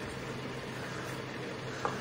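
Steady low hum and hiss of background noise, with one short click just before the end.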